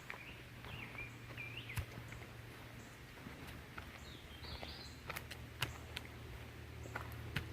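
A songbird calling in two short, warbling phrases, one about a second in and a higher one about four seconds in, with a few scattered footsteps on the trail.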